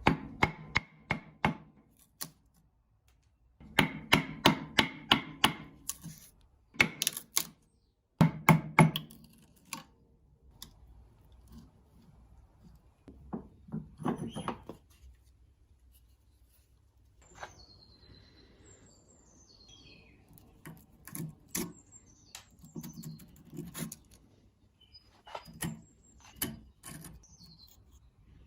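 Bursts of quick tapping strikes on the rusty wrench, about three to four a second, loudest in the first ten seconds and lighter later. Birds chirp in the background near the end.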